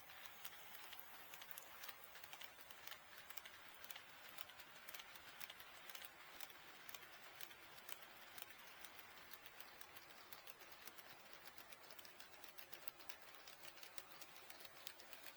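Faint, irregular clicking of an HO-scale model train's wheels running over the rail joints of the track, several clicks a second over a low hiss.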